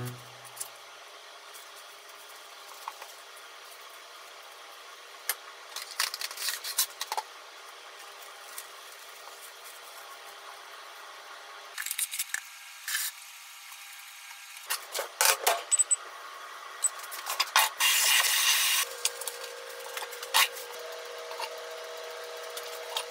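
Plastic cling wrap crinkling and rustling in short bursts as hands wrap and handle it, with a longer dense rasp about three quarters through as film is pulled from the roll.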